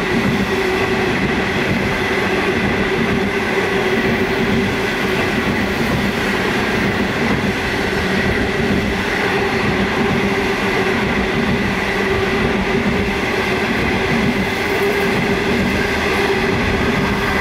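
Great Southern Rail passenger train's stainless-steel carriages rolling past, a steady rumble of wheels on rail with a steady whine over it.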